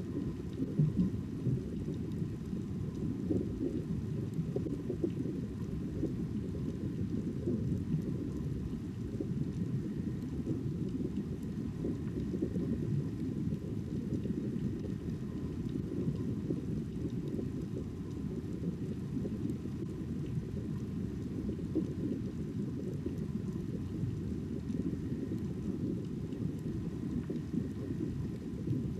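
Muffled underwater ambience: a steady, low rumbling wash of water noise with no distinct events.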